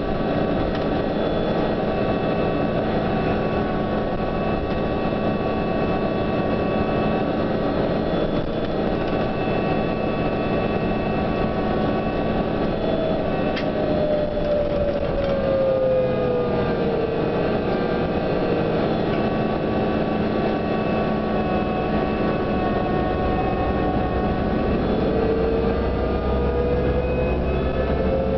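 Interior of a New Flyer DE42LFA diesel-electric hybrid bus under way: a steady drivetrain drone layered with several whining tones, the sound the rider calls unique. One whine falls in pitch about halfway through, and a whine rises again near the end.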